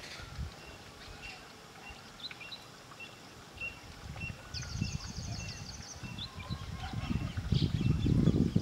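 Small birds giving short, high chirps again and again, with a brief buzzy trill about five seconds in. Low rumbling noise grows over the last second or two and becomes the loudest sound.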